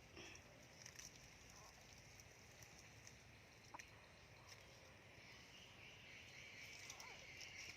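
Near silence: faint outdoor ambience with a steady high-pitched insect buzz that grows a little louder about five seconds in, and a few faint clicks.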